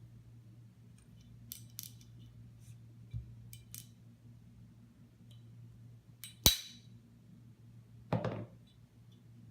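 Small metal parts of a Glock pistol being handled while a steel replacement slide backplate is fitted: light clicks and taps, one sharp metallic click about six and a half seconds in, then a short scrape near the end.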